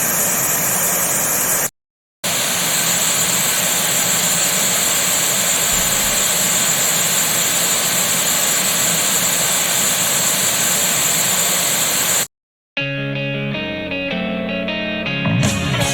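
White noise played through home-made two-way speakers (Daiso woofers with a Can Do tweeter) and picked up by a microphone in the room: a steady hiss that cuts out briefly about two seconds in, resumes for about ten seconds, then stops. Music then begins, a few single notes at first and then a full band near the end.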